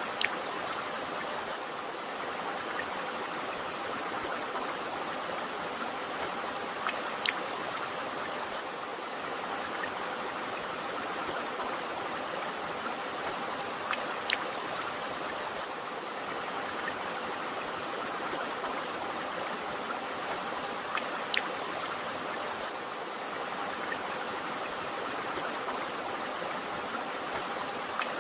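A river or stream running steadily with an even rushing flow. A few brief sharp plinks of water stand out about 7, 14 and 21 seconds in.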